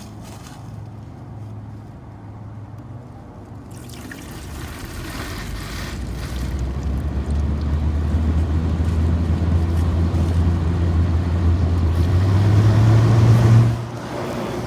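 LG window air conditioner starting up: a fan motor and rushing airflow build up over several seconds, the low hum slowly rising in pitch as it spins up, then the sound drops sharply near the end.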